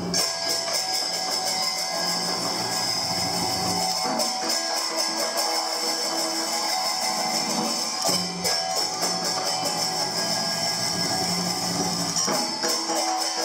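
Live traditional Vietnamese water puppet theatre music: plucked string instruments playing over steady percussion strokes.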